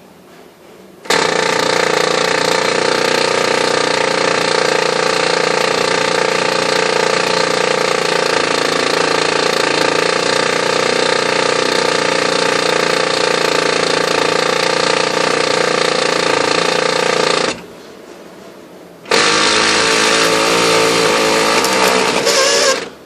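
Oki Data MB480 multifunction laser printer grinding loudly as its mechanism runs: one long run of about sixteen seconds, then after a short pause another of about three seconds. The grinding comes from a new replacement unit that also throws errors and jams.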